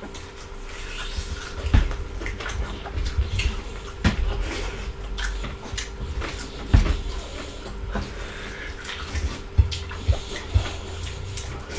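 Close-miked eating with the hands: wet chewing and lip smacks, many small irregular clicks, with a few low knocks, from two people eating fried pork ribs and salad.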